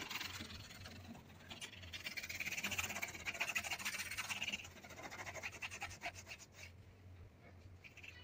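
Flat paintbrush scrubbing acrylic paint onto stretched canvas: a run of quick, scratchy bristle strokes, busiest a few seconds in and thinning out toward the end.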